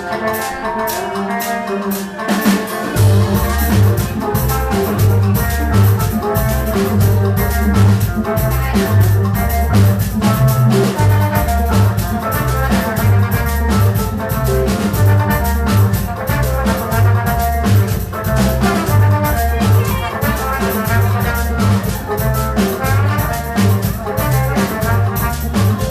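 Afro-Latin band playing live: drums, percussion and guitar in a steady groove, with a repeating bass line coming in about two and a half seconds in.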